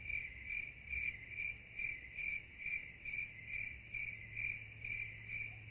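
Crickets chirping: a steady, even chirp repeated about three times a second, used as the sound of an empty, silent room.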